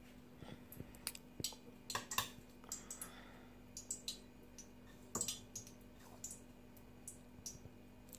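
Faint, scattered light clicks and taps of a spoon against a china plate while samosa filling is scooped, over a low steady hum.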